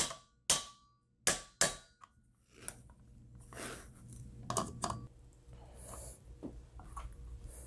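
Steel multi-tool pliers clicking and knocking against the metal socket cap and harp saddle of a table lamp: four sharp metallic clicks in the first two seconds, then quieter scraping and handling with a couple more clicks about halfway.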